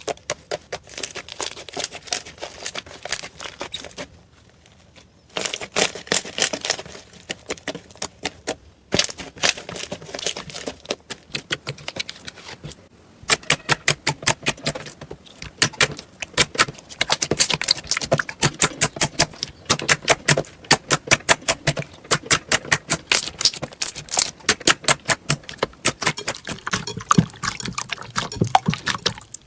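Slime being squeezed and worked by hand, giving wet crackling clicks and little pops, with short breaks near 5 seconds in and again near 13 seconds in, after which the clicks come in quick regular runs of several a second.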